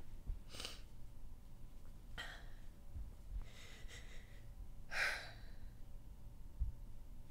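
A woman sighing and breathing audibly, four breaths about a second apart, the loudest about five seconds in.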